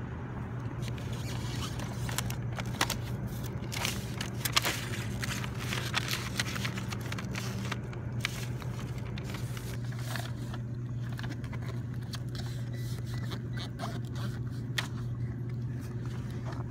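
Hand work on EPDM rubber roofing flashing: short scrapes, scrubbing and papery rustles as primer is scrubbed on and the backing paper is peeled off, busiest in the first half. A steady low machine hum runs underneath.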